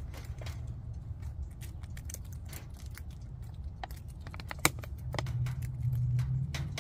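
Chickens pecking dried mealworms from an open palm: scattered sharp beak clicks, with one louder snap about two-thirds of the way through. A low steady hum runs underneath and grows louder about five seconds in.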